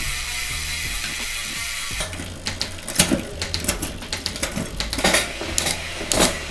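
Bicycle drivetrain on a workstand being run through the gears: the chain running over the Shimano SLX 12-speed cassette as a steady hiss, then a string of sharp mechanical clicks from about two seconds in, from shifting and the freehub ratchet.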